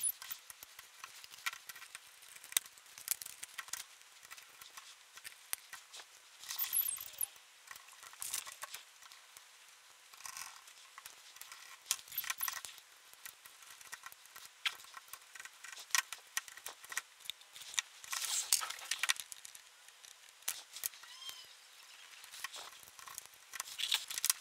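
Quiet scattered clicks and taps of plastic monitor housing parts and a circuit board being handled and fitted together on a workbench, with a couple of short scraping swishes.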